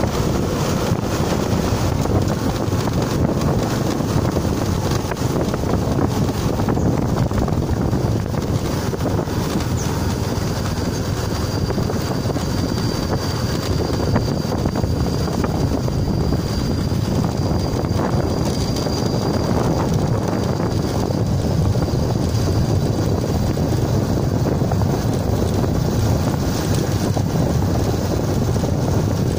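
Steady wind rush on the microphone and running noise of a vehicle moving along a road. A faint high steady whine sits over it for several seconds in the middle.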